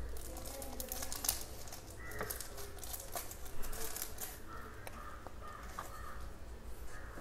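Thin plastic packaging crinkling and stiff paper strips rustling as they are handled by hand, with scattered light clicks.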